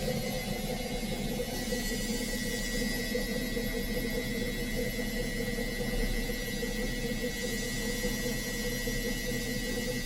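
Indesit IWSC 51051 washing machine in its spin cycle, the drum spinning at a steady speed with a steady motor whine over a low rumble and hiss.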